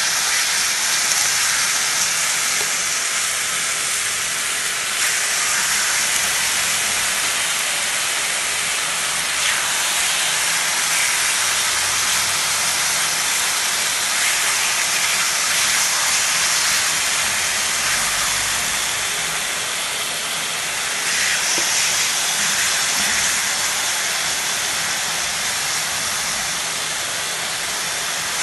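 Seasoned beef steaks sizzling steadily in a hot frying pan as they are laid in with tongs and begin to sear.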